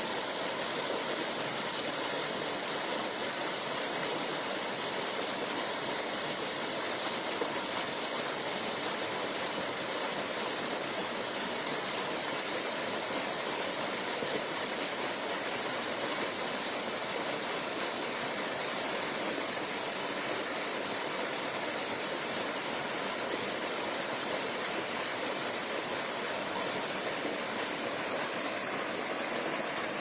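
Steady rush of a waterfall cascading over rocks: an even, unchanging hiss of falling water.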